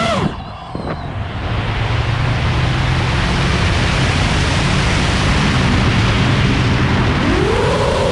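FPV quadcopter's brushless motors (Hypetrain 2306 2450kv on HQ 5048 props) whining and dropping in pitch as the throttle comes off. Then a steady rush of wind over a low motor drone for several seconds. About seven seconds in, the motor whine rises again as throttle is added.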